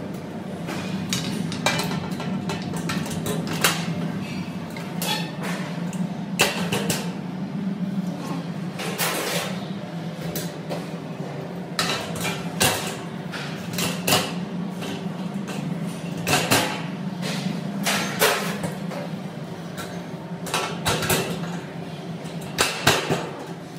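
Sheet-metal rack panels being handled and fitted into slotted steel uprights: scattered metallic knocks and clanks, some ringing briefly, over a steady low hum.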